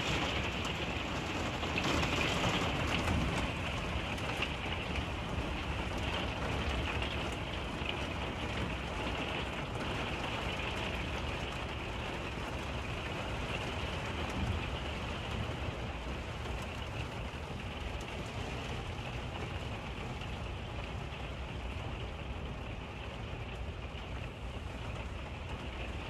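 Heavy rain pelting a motorhome, heard from inside the cab: a steady hiss of drops on the windshield and body. It eases slightly after the first few seconds.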